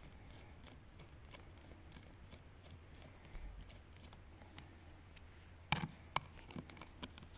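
Hand nut driver turning screws into the clear cover of a dry vacuum pump: faint, evenly spaced ticking, then a few sharper metal clicks near the end as the driver is set onto another screw.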